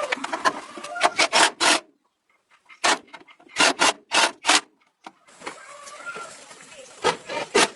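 Abrasive rubbing strokes, as of hand work on a surface, in quick runs of several short strokes, with a brief break about two seconds in.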